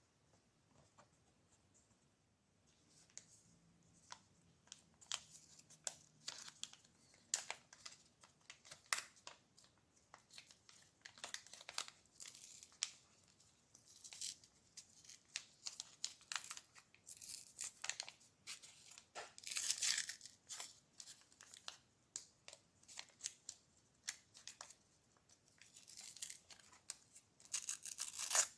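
Paper or foil packaging being crinkled and torn by hand, in irregular bursts of sharp crackles, busiest near the end.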